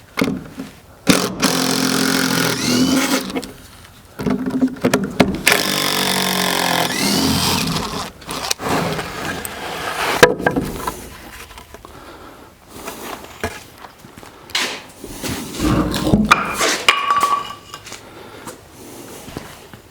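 Heavy wooden shed door swung on newly hung hinges, the hinges creaking in two long drawn-out spells, then a sharp knock about halfway through and scattered scrapes and knocks as the door is worked. The door swings freely after hanging.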